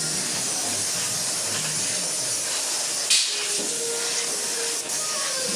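Arc welding on the steel frame of a drum wheelbarrow: a steady hiss from the welding arc, with one sharp snap about three seconds in.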